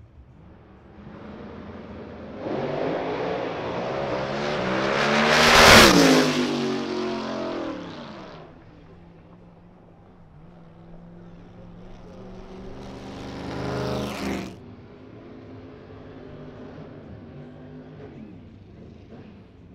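Drag race cars launching and accelerating at full throttle down the strip. The sound is loudest about six seconds in and fades as they pull away. Around thirteen seconds another race engine revs hard for a couple of seconds and cuts off sharply, then engines idle at the starting line.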